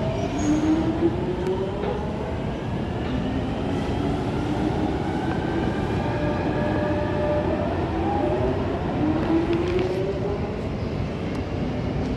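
London Underground 1996 stock train running, with a steady rumble of wheels on track and the whine of its traction motors, whose tones glide up in pitch in steps twice.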